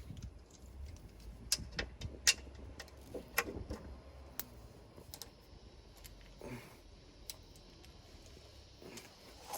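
Scattered sharp metal clicks and clinks of a socket wrench with a 14 mm socket and extension being worked on a fastener under a car, irregular rather than a steady ratchet rhythm.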